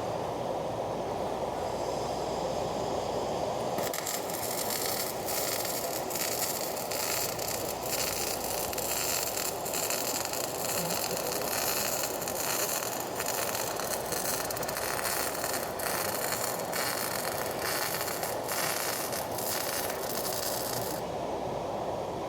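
Electric arc welding crackling and sizzling, starting about four seconds in and stopping shortly before the end, over a steady background noise.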